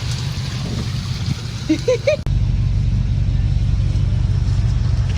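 Off-road 4x4 engine running with a steady low rumble. A few brief voice sounds come about two seconds in, and just after them the sound changes abruptly and the rumble becomes stronger.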